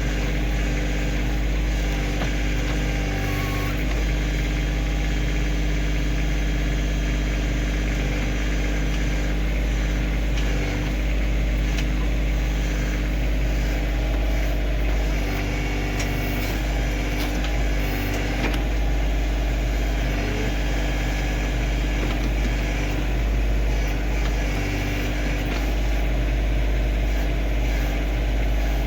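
Kioti CK2610 compact tractor's diesel engine running steadily at an even speed, with scattered faint clicks and knocks over it.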